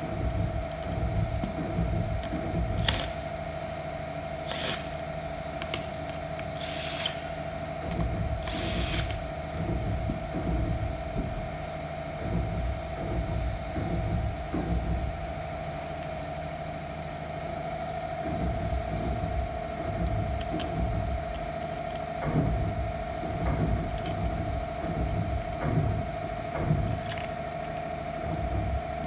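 Handling noise from assembling a barber chair: the chrome armrest frame and hardware are fitted to the padded seat, with a few sharp knocks and short rustling bursts over a steady background hum.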